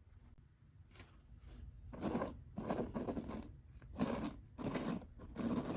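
Irregular scraping and rubbing of small objects being handled, in short bursts that start about two seconds in.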